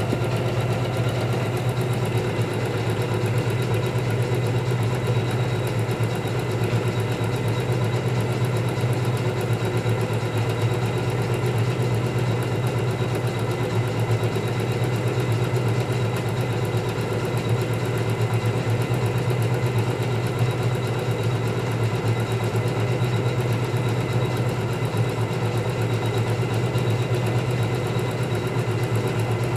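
Computerized embroidery machine stitching steadily: a rapid, even run of needle strokes over a constant low motor hum.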